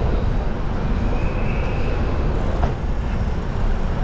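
Wind rushing over the microphone of a camera on a moving bicycle, a steady low rumble, over city street traffic. A faint high squeal comes in briefly about a second in.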